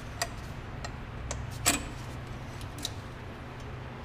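A handful of light metallic clicks and clinks, the loudest a little under two seconds in, as a thin metal hot-air choke tube is worked loose and pulled out, over a steady low hum.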